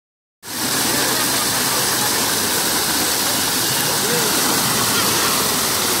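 Water from artificial rock waterfalls pouring into a swimming pool, a steady rushing that starts about half a second in, with faint voices behind it.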